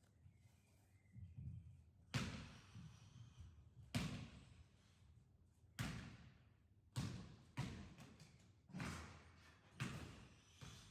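Heavy thuds at irregular intervals, about seven in all, each ringing out in the echo of a large sports hall.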